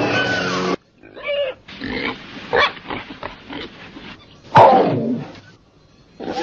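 Music for the first second, then a pig squealing in distress in short, irregular cries. The loudest is a long squeal about four and a half seconds in that falls in pitch.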